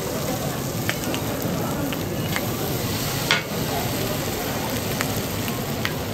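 Mutton ribs sizzling on a flat griddle, a steady frying hiss, with a few sharp clicks; the loudest click comes about three seconds in.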